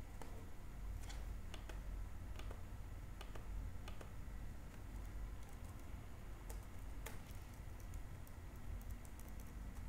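Faint, irregular keystrokes on a computer keyboard over a low steady hum.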